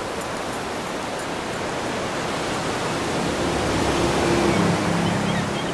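Sea surf washing over rocks: a steady, even rush of water noise that swells slightly through the middle. Faint low steady tones come in about halfway.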